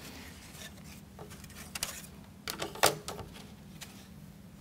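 A few light knocks and rustles as thin plywood model-kit sheets are handled and set down on a table, the sharpest knock a little under three seconds in.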